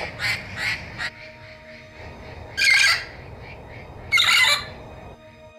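Lilac-crowned Amazon parrot calling: a quick run of short harsh calls in the first second, then two loud squawks about a second and a half apart.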